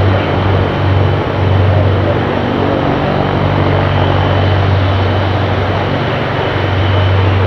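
Tupolev Tu-95MS's Kuznetsov NK-12 turboprops with contra-rotating propellers running as the bomber taxis, a loud, deep, steady drone with a faint thin high whine above it.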